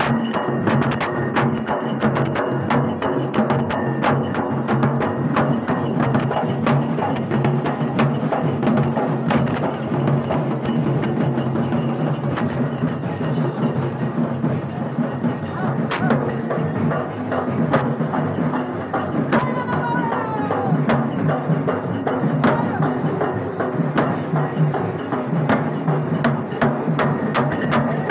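Fast, dense drumming on large barrel drums (dhol) with clattering percussion, playing without a break, over a steady low hum.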